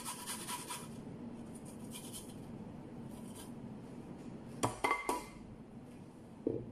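Fresh ginger being rubbed on a stainless steel box grater, a quick run of rasping strokes in the first second, then a few fainter strokes. About five seconds in come three quick clinks of metal and glass.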